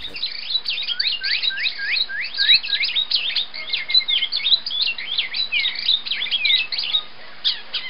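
Many small birds chirping and twittering rapidly, quick overlapping up-and-down chirps, with a faint steady hum beneath.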